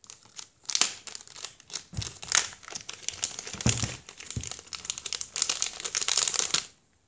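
Fidget spinner's packaging bag crinkling and rustling in quick, irregular crackles as it is pulled open by hand. It stops shortly before the end.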